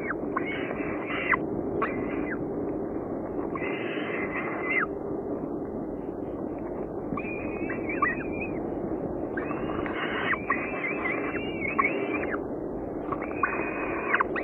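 Downy falcon chicks giving harsh, screechy food-begging calls in repeated clusters of short bursts while being fed, over a steady low hum.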